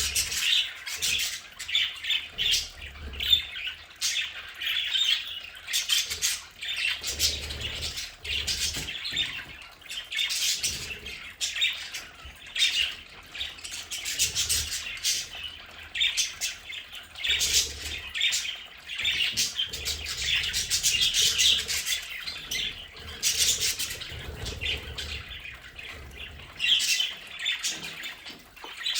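A flock of budgerigars chattering, chirping and squawking continuously, with many short sharp calls.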